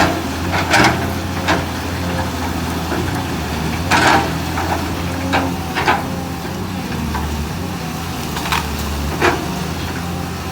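Caterpillar 320 hydraulic excavator's diesel engine running steadily while wood cracks and splinters in about eight sharp snaps, as eucalyptus stumps are pried out of the ground.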